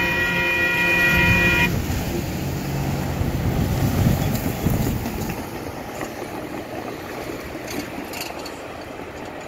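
Grade-crossing warning bell ringing as a set of steady tones, cutting off suddenly about two seconds in. Then cars drive over the crossing, their tyres and engines passing and fading away.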